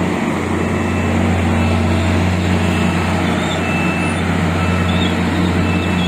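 Steady road noise from riding an electric kick scooter along a wet street: a constant low hum with an even hiss of tyres on the wet pavement.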